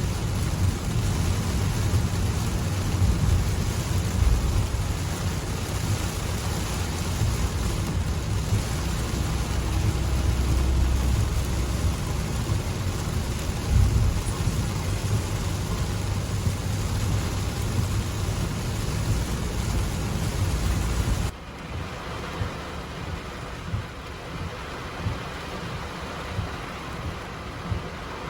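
Heavy rain pouring, a dense hiss with a deep rumble underneath. About three-quarters of the way through it drops suddenly to quieter rain with scattered drips ticking.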